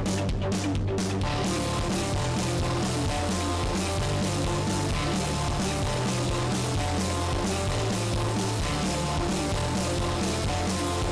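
Rock music with distorted electric guitar and a steady beat, playing as a backing track; it gets fuller about a second in.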